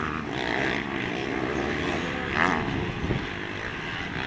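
Motocross dirt-bike engines revving, their pitch rising and falling as the bikes race over the track, with a brief louder burst about two and a half seconds in.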